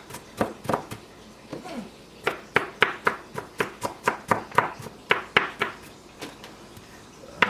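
Kitchen knife chopping garlic on a cutting board: a run of quick, sharp taps, about three to four a second, with a short pause about a second and a half in.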